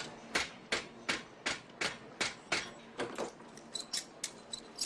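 Metal striking metal as a hinge is made by hand: a steady series of sharp clanks, about three a second, then lighter, quicker clicks with a brief metallic ring near the end.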